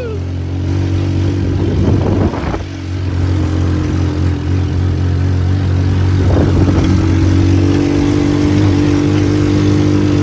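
Single-cylinder Ducar DF200GKV engine on a homemade buggy running under steady throttle while riding. Two short rushes of noise come about two and six seconds in.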